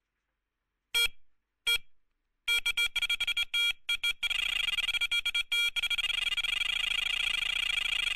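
Electronic carp bite alarm: two single bleeps, then bleeps coming faster and faster until they run together into one continuous warbling tone, as when a fish takes line on a run.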